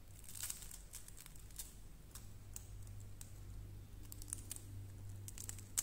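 Crispy fried shredded-potato pancake crackling as it is lifted and torn apart by hand: a scatter of sharp little crunches, the loudest near the end.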